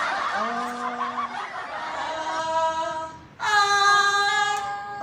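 Unaccompanied voices at choir practice holding long sung notes: first a lower held note, then, about three and a half seconds in, a higher and louder one.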